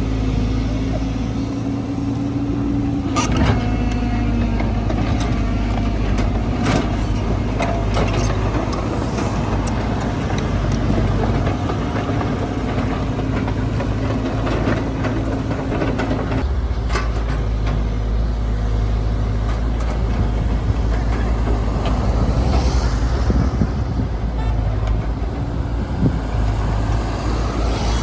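Heavy machinery engines running steadily with a deep rumble and a steady engine note, with a few sharp clanks in the first ten seconds.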